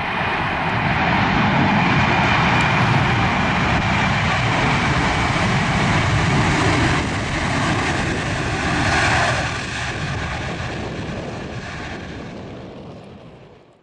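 Swiss Airbus A321 jet engines running as the airliner rolls out on the runway just after touchdown. The sound is loud and steady at first, swells briefly about nine seconds in, then fades away near the end.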